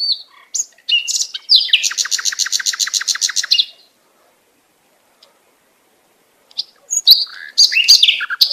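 Bird chirps, then a fast trill of about 8 evenly repeated notes a second lasting roughly two seconds. After a silent pause, more chirps come near the end.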